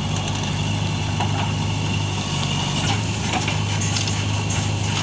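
JCB 3DX backhoe loader's diesel engine running steadily as the backhoe arm swings a bucket of soil over and empties it into a tractor trolley. The engine note shifts slightly about halfway through, and short crackles of soil and stones falling into the trolley come near the end.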